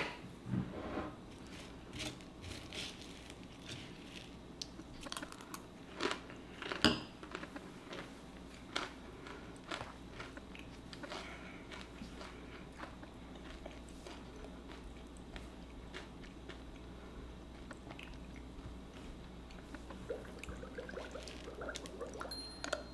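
Someone eating a bowl of granola with fruit: scattered short clicks of a spoon against a ceramic bowl and crunchy chewing.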